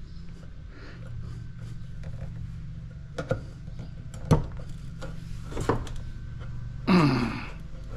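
Sharp metal knocks and clicks of a tool working on a stainless steel travel mug, with a louder, longer scrape about seven seconds in, over a steady low hum.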